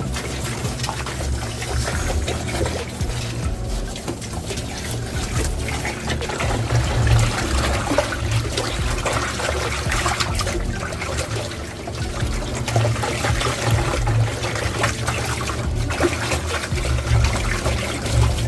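Water running and splashing steadily, as in rinsing the parts of a top-loading washing machine.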